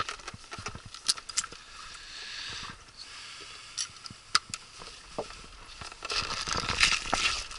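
Footsteps crunching on pebbles and gravel, with scattered sharp clicks and knocks. The crunching gets louder about six seconds in.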